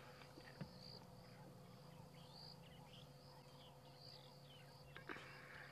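Near silence: faint bush ambience with a steady high insect drone and scattered faint bird chirps over a low steady hum.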